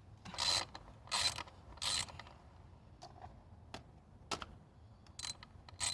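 Short bursts of mechanical clicking and rattling from hand tools and parts being worked in a car's engine bay during a spark plug and ignition coil change: three brief bursts in the first two seconds, then a few single sharp clicks.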